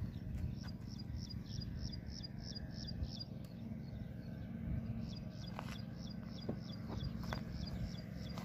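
A small bird's high, falling chirp repeated rapidly, about four or five times a second, in two runs with a short break between them, over a steady low rumble.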